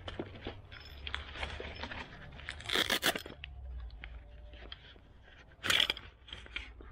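A fabric camouflage shovel pouch being pulled open by hand: two short ripping sounds about three seconds apart as its fastening is torn open, with rustling of the cloth and packaging in between.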